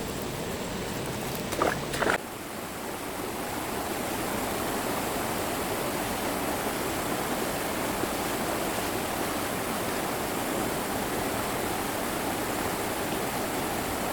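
Steady rushing of flowing water, with two short louder sounds about one and a half to two seconds in.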